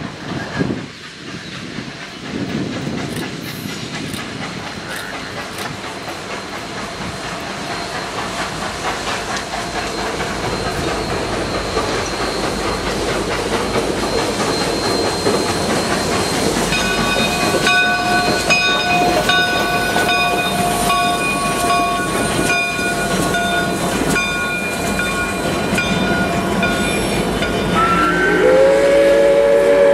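CP 2816, a 1930 H1b class 4-6-4 Hudson steam locomotive, approaching with its steam hiss and running noise growing steadily louder. A bell rings repeatedly from a little past halfway, and near the end the steam whistle opens, sliding up in pitch into a held chord.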